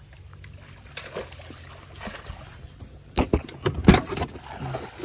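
A cluster of sharp knocks and thuds about three to four seconds in, the loudest near the four-second mark, as a live snakehead fish is put into a plastic box among other caught fish. Under it runs a steady low hum.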